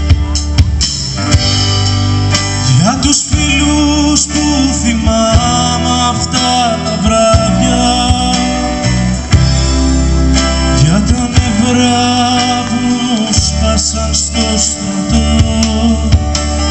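Live entechno-rock band playing a song: acoustic guitar strumming with the band and a voice singing.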